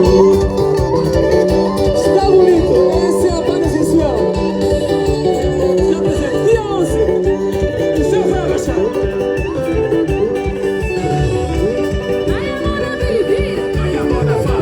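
A live band playing dance music with a plucked guitar melody and a steady drum beat, with voices singing over it.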